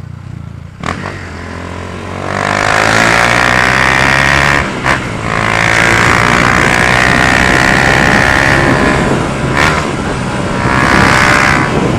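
Honda Fan 150 single-cylinder engine, bored out with a 4 mm kit and a stroked crank, running through a Gemoto Racing exhaust. It runs low at first, then revs up hard from about two seconds in, the pitch rising. Two brief dips, about five and ten seconds in, are gear changes before it pulls up again.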